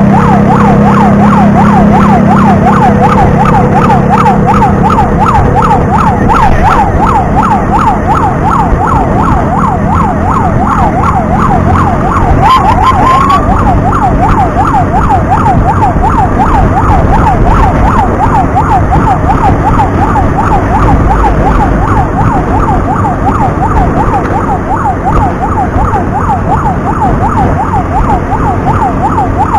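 Emergency siren in a fast yelp, its pitch sweeping up and down several times a second without a break, over steady engine, road and wind noise from riding in traffic. A short extra chirp cuts in briefly about twelve seconds in.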